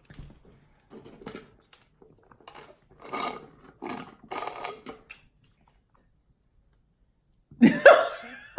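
A few short, soft mouth sounds, then after a pause a single loud burp near the end.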